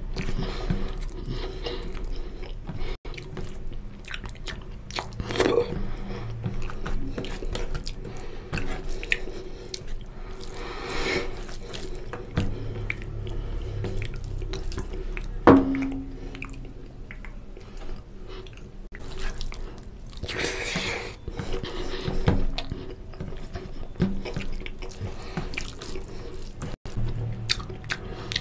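Wet squelching of a bare hand mixing rice into oily curry gravy on a steel plate, with close-miked chewing of mouthfuls. A single sharp clink against the steel plate about halfway through.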